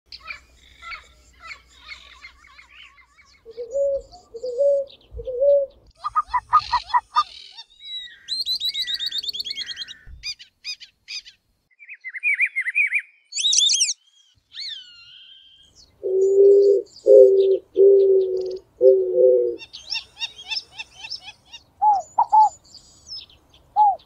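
Several kinds of wild birds calling one after another, each for a few seconds: twittering chirps, a fast high trill, clear high whistles, and a run of four low, even notes about two-thirds of the way through.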